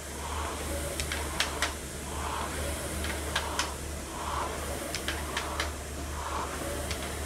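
Air rowing machine being rowed hard: the flywheel fan whooshes with each pull, with sharp clicks from the machine, about one stroke every two seconds over a steady low hum.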